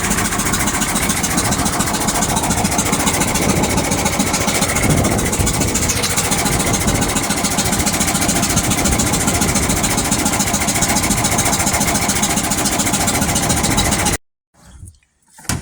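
International Harvester 2+2 articulated tractor's diesel engine running steadily, loud and close, then cut off abruptly about fourteen seconds in.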